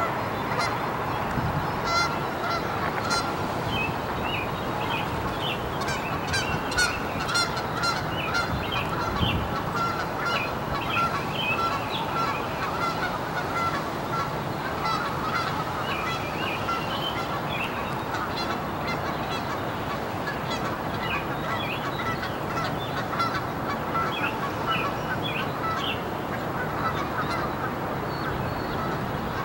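Birds calling repeatedly, with many short high chirps, over a steady wash of splashing water from a small pond fountain.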